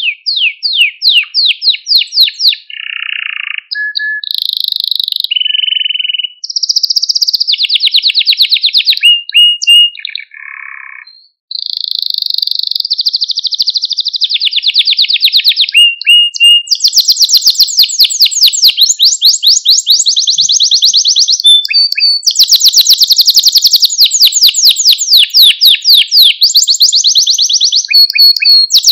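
Male domestic canary singing close up: a long run of fast trills and rolling phrases, each a rapid series of repeated notes, changing pitch from phrase to phrase, with a short break about eleven seconds in.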